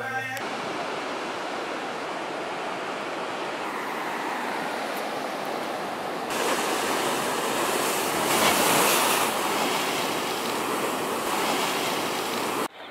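Ocean surf breaking on a sandy and rocky shore: a steady rush of waves that grows louder about six seconds in.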